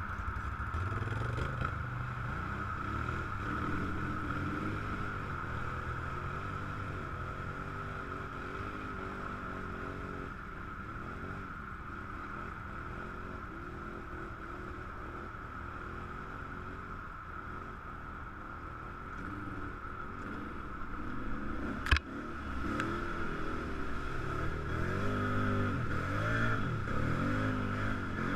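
Quad (ATV) engine running along a dirt trail, its pitch rising and falling with the throttle. A single sharp knock comes about three-quarters of the way through, and near the end it revs harder through a muddy puddle with splashing.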